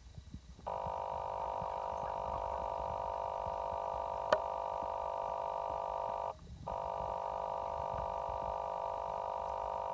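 A shower runs onto shoes and trousers, a steady rushing sound with a hum of tones in it. It starts about a second in, cuts out briefly around six seconds, and has one sharp click near the middle.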